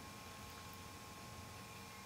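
Quiet room tone: an even hiss with a faint steady high hum, and no distinct sound.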